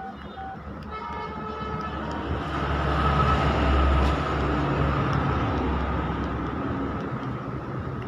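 A motor vehicle passing by: a low engine and road rumble that swells to its loudest about halfway through, then slowly eases off. Before it builds, a few short keypad beeps sound from the phone as the keys are pressed.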